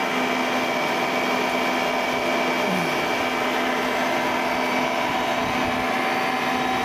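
Motor-generator set, an electric motor driving a generator, running steadily with an even hum and whine.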